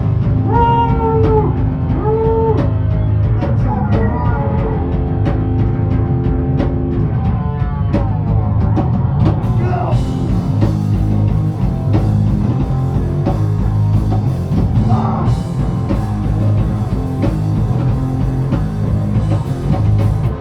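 Live rock band playing loudly: distorted electric guitars, bass and drum kit, with bending guitar notes in the first few seconds.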